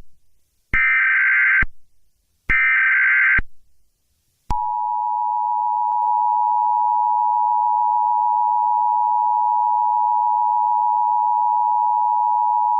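Emergency Alert System (EAS) broadcast opening: two short bursts of data tones of about a second each (the end of the SAME digital header), then about four and a half seconds in, the steady two-tone EAS attention signal (853 and 960 Hz) sounding for about eight seconds.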